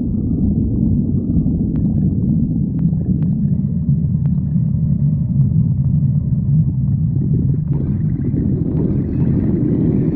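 A person's empty stomach growling: a long, continuous low rumble.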